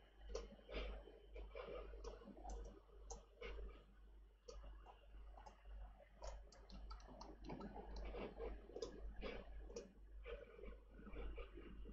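Faint typing and clicking on a computer keyboard and mouse: irregular light clicks, several a second.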